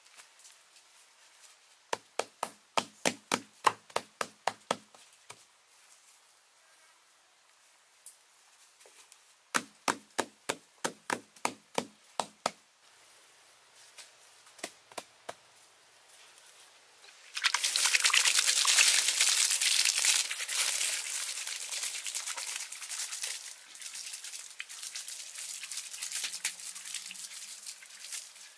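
Two short runs of rapid taps, about five a second. Then, about two-thirds of the way in, a sudden loud splashing of water poured over moss-covered ground starts, tapering off toward the end.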